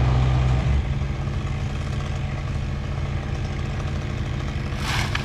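An engine running steadily at idle, with a short hiss about five seconds in.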